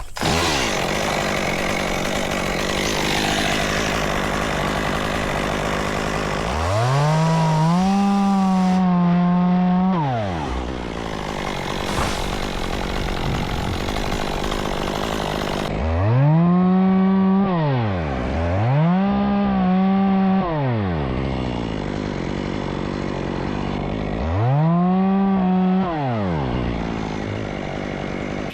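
Chainsaw running, throttled up to full speed four times and held there for two to three seconds each, dropping back to a lower, rougher run in between; the second and third run-ups come close together.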